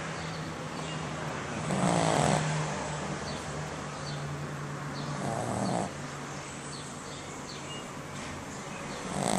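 A sleeping pet snoring, with a louder snore about every three to four seconds (about two seconds in, about five and a half seconds in, and at the very end) and a steady low hum between them.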